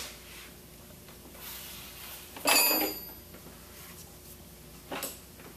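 Metal pump parts being handled on a workbench: a sharp click, then a loud metallic clank with a brief high ringing about two and a half seconds in, and a softer knock near the end.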